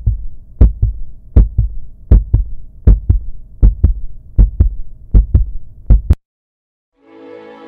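Heartbeat sound effect: a steady lub-dub double thump, about eight beats, that stops abruptly about six seconds in. Soft music begins near the end.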